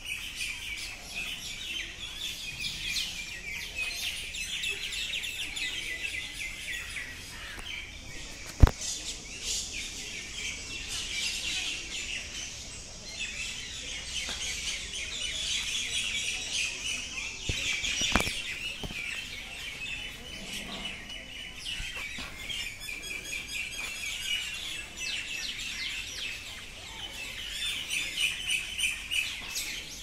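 Birds chirping and twittering throughout, with a sharp click about nine seconds in and another around eighteen seconds in.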